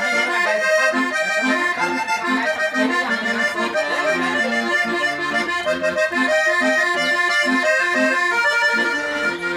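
Accordion playing a lively traditional dance tune: a quick melody over regular bass notes about twice a second.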